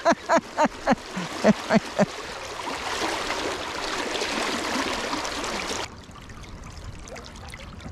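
River water rushing and splashing, a loud hiss that swells a few seconds in and cuts off suddenly near the end, leaving a quieter flow. It opens with a quick run of short sounds that fall in pitch.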